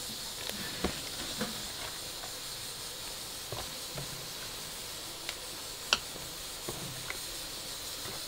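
Seasoned water heating to a boil in a pot on a charcoal stove: a steady hiss with a few short sharp pops, the loudest about six seconds in.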